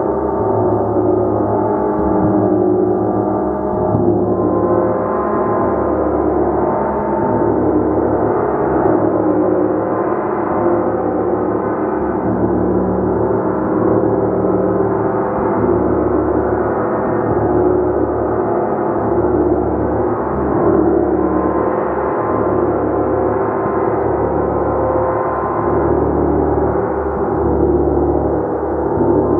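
Gong played continuously, struck again and again so its many overlapping tones build into a dense, steady wash of sound.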